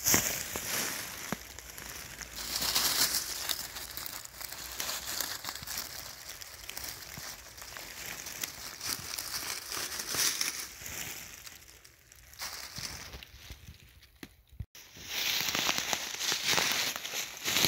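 Dry fallen beech leaves crunching and rustling under footsteps and a hand pushing through them, in uneven bursts. A quieter stretch comes near the end, broken by a single sharp click, before the louder crunching starts again.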